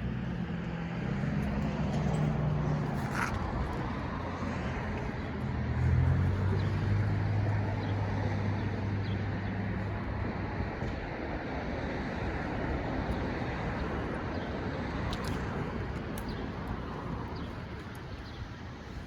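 Road traffic noise with a car engine running close by, its low hum strongest in the first half and fading toward the end.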